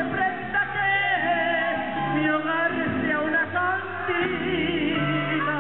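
Band music with a singer: a wavering sung melody over a steady bass line that changes note every second or so.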